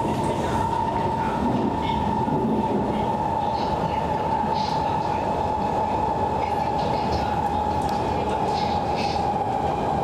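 SMRT East–West Line metro train running at speed, heard inside the carriage: a steady rumble of wheels and running gear with a constant high whine that sags slightly in pitch near the end, and faint scattered squeaks and rattles.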